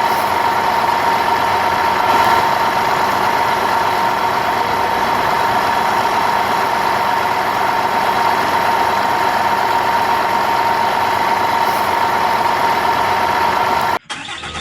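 A steady engine-like running sound with a constant high hum, the sound of a toy JCB loader at work. It cuts off suddenly near the end.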